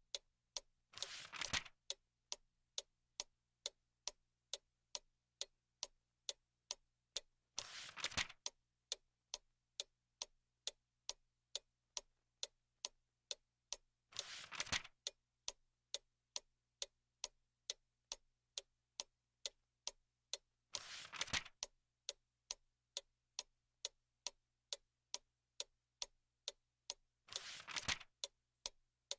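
A clock ticking steadily, about two ticks a second, with a short rustle about every six to seven seconds: a book's page being turned.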